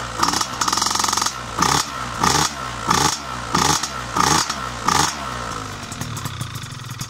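Piaggio Zip SP scooter's two-stroke engine, with a Malossi 172 cc kit, 35 mm Keihin PWK carburettor and PM Tuning PM59 expansion exhaust, being blipped. It gives about eight short rev bursts in quick succession, then drops back to a steady idle about five seconds in, while being warmed up from a cold start.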